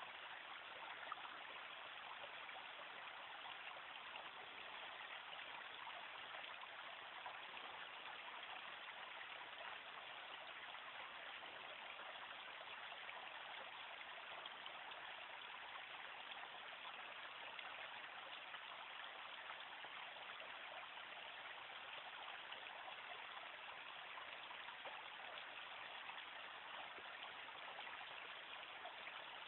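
Shallow creek running over a rocky bed, a steady babble of water over stones.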